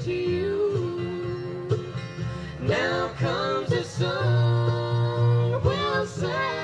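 Country song with a sung lead vocal over plucked guitar.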